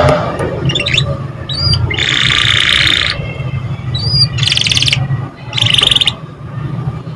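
Canary singing: short rising-and-falling chirps, a buzzy trill about two seconds in lasting about a second, and two rapid, fast-pulsed trills near the end, over a steady low hum.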